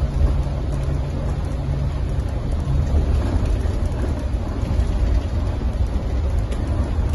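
Steady low rumble of a moving bus, engine and road noise heard from inside the cabin.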